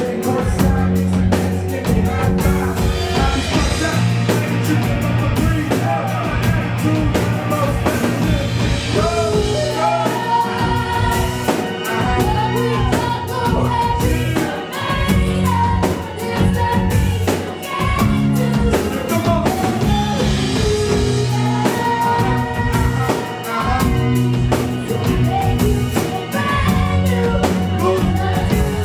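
A live band playing a hip-hop song as a rock cover, with a drum kit, keyboards and electric guitar under lead vocals. A steady repeating bass line runs underneath.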